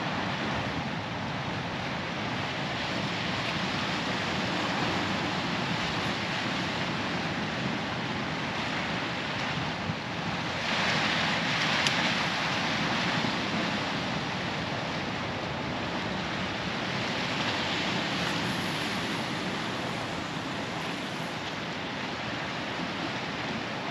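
Sea swell washing and breaking against shore rocks: a steady rushing wash that surges louder about eleven seconds in and again later.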